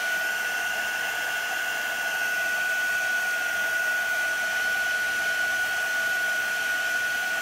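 Handheld craft heat gun running steadily: a constant rush of blown air with a steady high whine from its fan, used to dry fresh ink.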